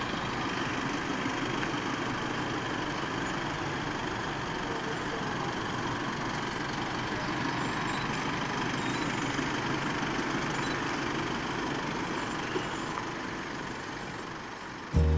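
Motorcade vehicles rolling slowly past: a steady drone of engine and road noise. Music cuts in right at the end.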